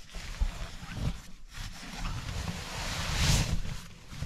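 Rustling and swishing of a nylon sleeping bag being pulled from its stuff sack and shaken out over a bed, coming in irregular swells, loudest about three seconds in, with soft thumps as it drops onto the mattress.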